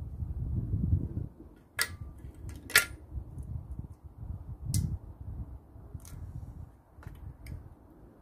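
Sharp metallic clicks and knocks, about six of them, as small lawnmower carburettor parts are handled and set down, over a low rumble.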